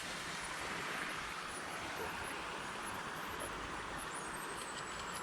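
Steady outdoor hiss, with a faint thin high whistle starting about four seconds in, falling slightly.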